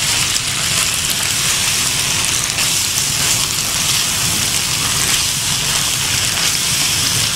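Spiced minced meat and boiled macaroni sizzling in a hot non-stick pan over a gas flame, a steady hiss as the mixture is stirred with a spatula.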